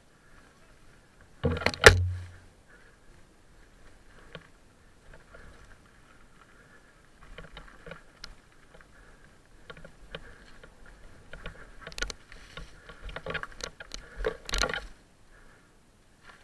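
Mountain bike rattling and knocking over a rough dirt trail: one loud jolt with a low thump about two seconds in, then a run of sharp clicks and knocks from about seven seconds on, thickest near the end.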